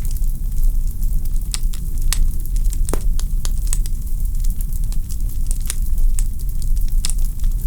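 Wood fire in a fireplace crackling: irregular sharp pops and snaps from the burning logs, several a second, over a steady low rush of the flames. One stronger pop comes about three seconds in.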